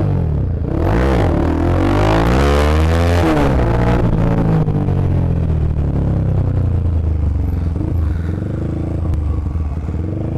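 Motorcycle engine pulling under throttle while riding: the revs rise over the first few seconds, drop back, then run fairly steady.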